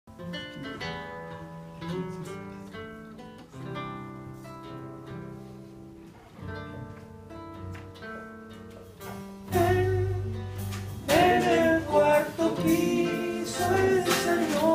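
Live acoustic guitar picking single notes in a song intro, then the full band comes in much louder with a heavy bass line about two-thirds of the way through.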